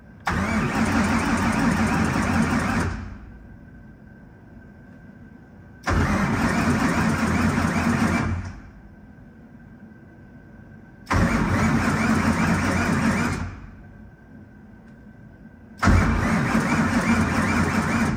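Starter motor cranking a car engine in four bursts of about two and a half seconds each, with pauses between, without the engine catching. A faint steady whine is heard in the pauses.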